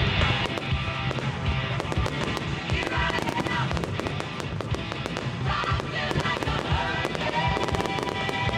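Fireworks going off in a dense run of sharp pops and crackles, with music playing under them throughout.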